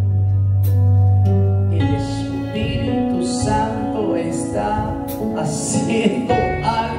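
Worship music: a low note held for roughly the first two seconds, then shifting chords and melody.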